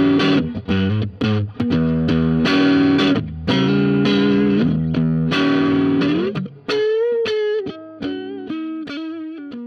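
Fender FSR '61 Stratocaster electric guitar played through an amp: rhythmic chord strums with short breaks. About seven seconds in it changes to a quieter single-note lead phrase with a bent, wavering note, dying away at the end.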